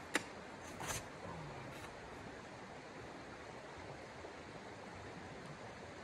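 Creek water running steadily over stones. Near the start, a sharp click and then a short rustling knock as a person sits down into a folding camp chair.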